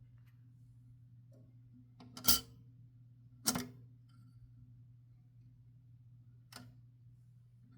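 Sharp mechanical clacks from a 1969 Adler J5 manual typewriter being worked: two loud ones about a second apart, then a fainter one a few seconds later, over a steady low hum.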